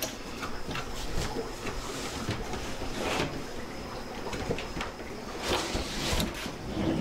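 A cardboard box being opened and a plastic hang-on-back aquarium filter slid out of it: a run of cardboard scrapes, rustles and light knocks, with longer scraping sweeps about three seconds in and again near the end.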